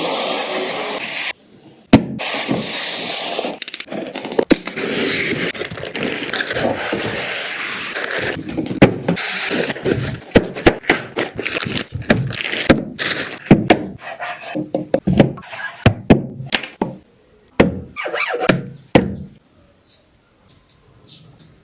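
Packaging being handled and opened. Rustling and scraping comes first, then a run of sharp knocks and clicks as parts are taken out, all stopping shortly before the end.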